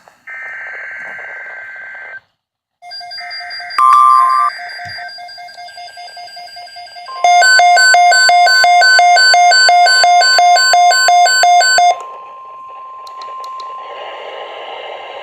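NOAA Weather Radio alert coming in over a weather radio receiver. First come the buzzy SAME digital data bursts, with a short gap and a short loud beep about four seconds in. Then the steady 1050 Hz warning tone sounds, with the receiver's own loud pulsed beeping alarm over it for about five seconds.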